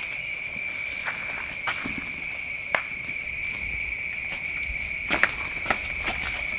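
Steady high-pitched chirring of crickets at night, with scattered footsteps crunching on the ground as people walk.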